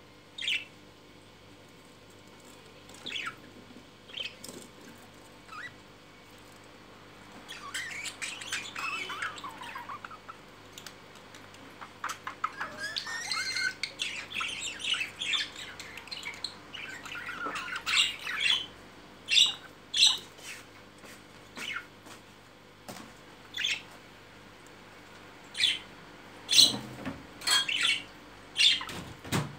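Pet budgerigars chirping: scattered short calls, two stretches of rapid warbling chatter in the middle, then a run of loud, sharp short calls near the end.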